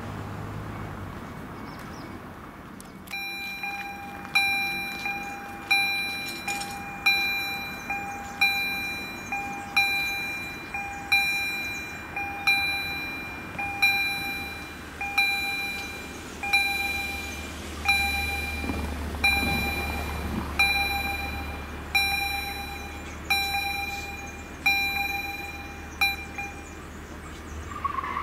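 Level-crossing warning bell ringing: evenly repeated chime strikes about once every second and a half, each ringing out and fading, starting about three seconds in and stopping shortly before the end. It is the crossing's audible warning that a train is approaching.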